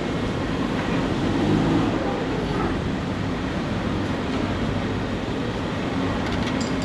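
Steady background din of a busy open-air restaurant, an even rumble with a low hum under it.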